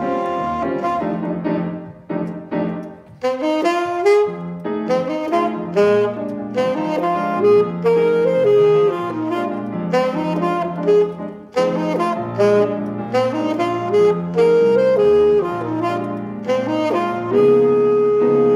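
Saxophone playing a jazz melody in short phrases over piano accompaniment. After a brief gap the line picks up about three seconds in and ends on a long held note.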